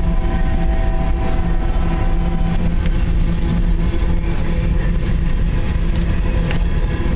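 Coal hopper cars of a freight train rolling past at close range: a steady heavy rumble of steel wheels on rail, with a few steady tones over it that fade out a little under three seconds in.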